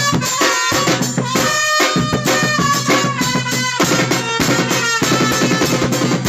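Music with a busy drum and percussion part over sustained pitched notes.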